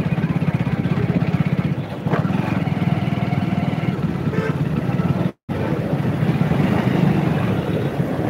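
Motorcycle engine running at riding speed, a steady fast pulsing with road and wind noise mixed in. The sound cuts out completely for an instant about five seconds in.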